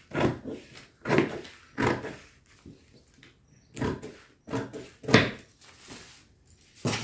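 Large dressmaking shears cutting through brown pattern paper: a run of about seven crisp snips, some close together, with short pauses between.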